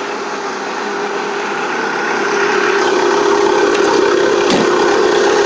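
1980 Case 480D backhoe's 3.1-litre three-cylinder diesel idling steadily as it warms up after a 0°F cold start on the block heater, slowly growing louder.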